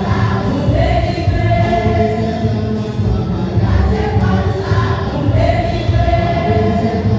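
Church choir singing a hymn during mass, with long held notes over a full, steady musical accompaniment.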